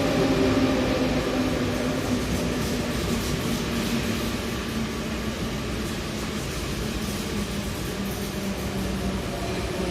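Electric RER commuter train running on the track, a steady rolling noise with a motor hum that fades over the first couple of seconds.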